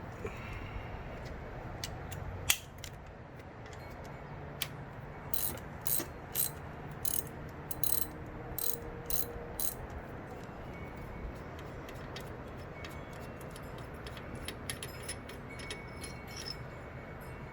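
Ratchet wrench being worked in short strokes: a run of sharp metallic clicks, thickest through the middle, with scattered lighter ticks later, over a steady low hum.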